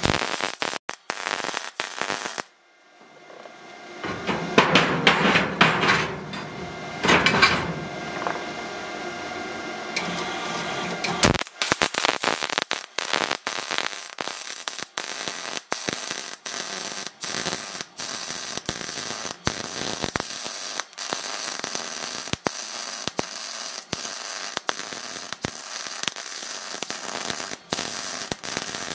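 Wire-feed (MIG) welding arc on steel plate, crackling. It comes in short broken bursts at first, then runs as a steady, dense crackle from about a third of the way in. A louder, rougher noise fills several seconds in the middle.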